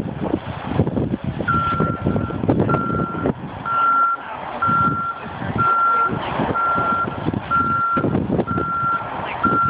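A heavy truck's reversing alarm beeping about once a second, starting about a second and a half in, over the rumble of a truck engine in the snow.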